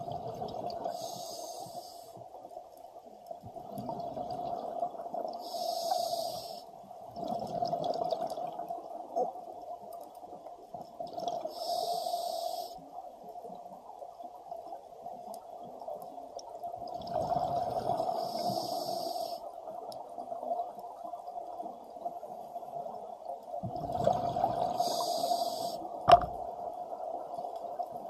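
Scuba diver breathing through a regulator underwater: five hisses on the inhales, about every six seconds, and a bubbling rumble on each exhale, over a steady hum. A single sharp click near the end.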